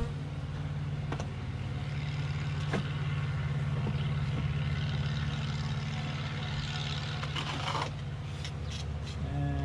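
Honeybees buzzing in a steady hum around a hive that is being worked, with a few light knocks and clicks of wooden hive boxes and frames being handled.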